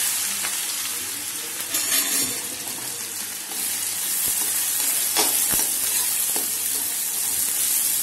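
Chopped onions sizzling in hot oil in a metal kadhai, loudest just after they go in, while a perforated spoon stirs them, with a few sharp clicks of the spoon against the pan.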